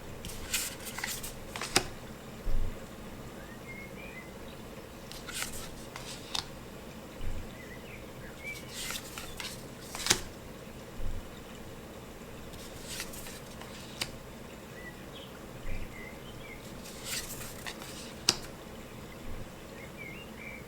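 Matte-finish tarot cards being handled and flipped one at a time, about every four seconds. Each turn is a short papery slide ending in a crisp snap, and a soft low thump falls between turns.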